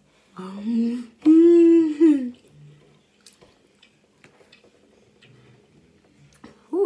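A woman hums "mmm" twice through a mouthful of food, a short one and then a loud, held one that dips at the end, a sound of enjoying the bite. Then come quiet chewing and a few light clicks of a metal fork against a paper plate, with a brief rising hum near the end.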